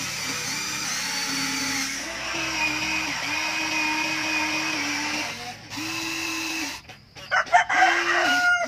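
Electric motors of a toy remote-control excavator whining in short runs of one to two seconds, each starting, stopping and changing pitch as the arm and bucket move. A few sharp knocks come near the end.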